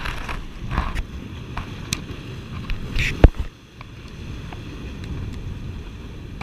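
Wind on the microphone and surf washing over the rocks, with short plastic clicks and knocks from a tackle box being handled; a sharp click about three seconds in is the loudest sound.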